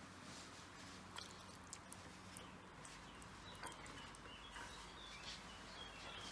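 Quiet handling sounds: scattered light clicks of flat metal skewers and soft wet sounds of marinated chicken pieces being picked from the bowl. A few faint bird chirps come in near the middle.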